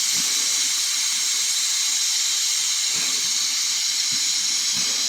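Steam hissing steadily and loudly from the Bulleid West Country class steam locomotive Eddystone as it stands on the turntable.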